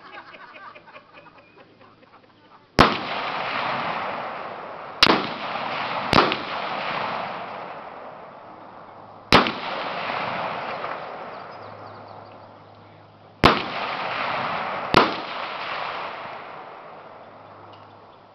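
Six gunshots from a shooting range's firing line, heard from downrange at uneven intervals, each a sharp crack followed by a long echo that dies away over a few seconds.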